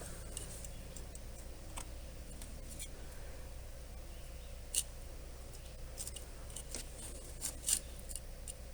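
Scattered small sharp clicks and ticks from stripped copper wires and a soldering iron being handled while two wires are soldered together. The loudest clicks come about five seconds in and twice near the end, over a faint steady low hum.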